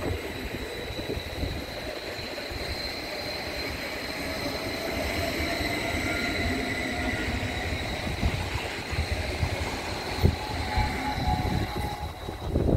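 Electric train running in the station, with a steady whine and a fainter tone rising slowly in pitch from about midway, over a low rumble of the train.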